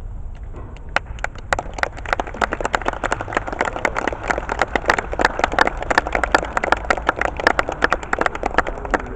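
Audience applauding, a dense patter of many hands that starts about a second in and thins out near the end.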